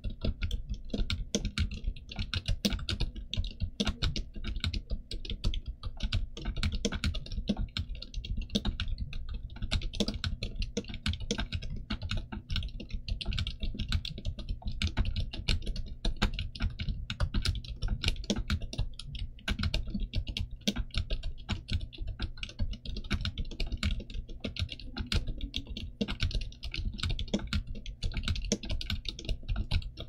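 Steady, fast typing on a Gamakay TK75 mechanical keyboard with Pegasus silent linear switches, a steel plate and dye-sub PBT Cherry-profile keycaps: a dense, unbroken stream of keystrokes.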